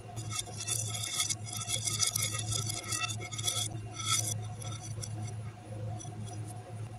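Small plastic pieces sliding and clinking across a ceramic plate, a scraping rattle for about three and a half seconds, then a shorter burst of it about four seconds in.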